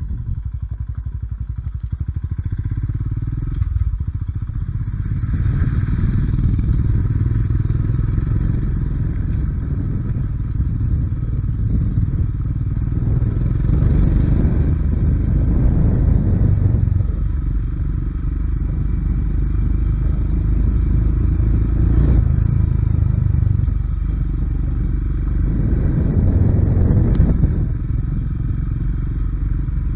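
Royal Enfield Himalayan's single-cylinder engine running while the bike is ridden along a rough dirt trail, its note rising and falling with the throttle several times.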